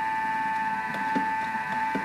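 Kitchen appliance's motor running with a steady high whine while it whips frozen fruit and egg white into a sorbet-like whip. A few light knocks come about halfway through and near the end.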